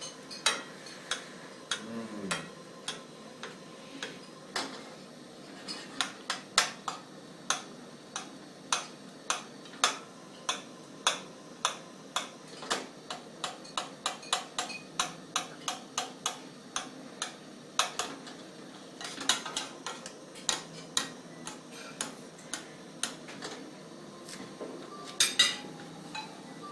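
Cutlery clinking and tapping against plates: many short, sharp clicks at irregular intervals, about one to three a second, as people eat at a table.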